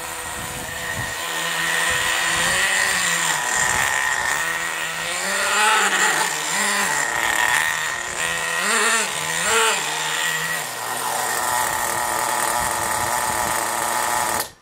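Small nitro engine of an HPI Bullet MT 3.0 RC monster truck, running and revving up and down several times as the truck drives, then holding a steadier note for the last few seconds. The engine is set to its default needle settings, so it is not running at top performance.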